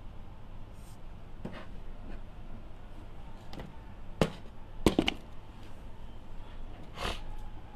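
A handful of sharp knocks and clicks over a low steady hum. The loudest is a single knock about four seconds in, followed a second later by a quick double knock.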